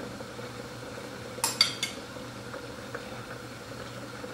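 A metal spoon clinking against a ceramic bowl while salad is scooped out, with three quick clinks about a second and a half in, over a steady low hum.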